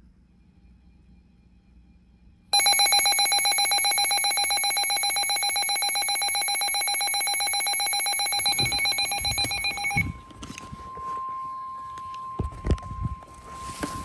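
A weather radio's alert alarm starts about two and a half seconds in: a loud, fast-pulsing, bell-like ringing that lasts about seven seconds. It gives way to a fainter steady single tone, the NOAA Weather Radio warning alarm tone that announces a warning, while quick footsteps thump up stairs.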